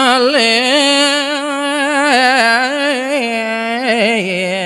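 A man singing a line of Balinese geguritan (tembang) solo into a microphone: long held notes decorated with wavering melismatic turns, the pitch stepping down near the end.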